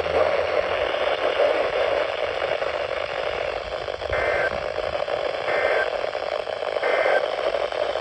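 Midland weather radio's speaker hissing with steady static, with three short beeps about a second and a half apart in the second half.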